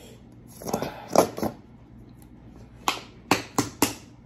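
Plastic squeeze bottle being handled and squeezed: two short noisy sounds about a second in, then four sharp clicks in quick succession near the end.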